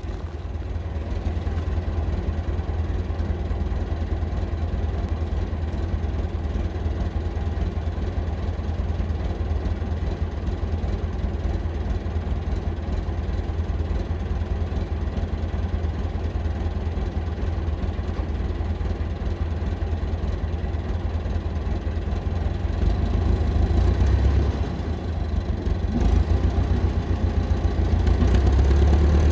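Massey Ferguson 50HX backhoe loader's diesel engine running steadily at low revs, growing louder about 23 seconds in and again from about 26 seconds on.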